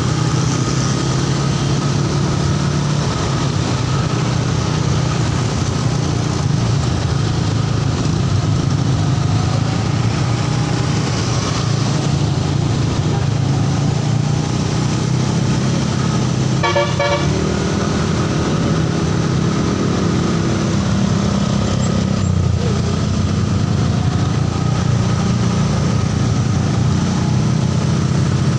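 Idling vehicle engine running steadily amid passing road traffic, with a short vehicle horn toot a little past halfway.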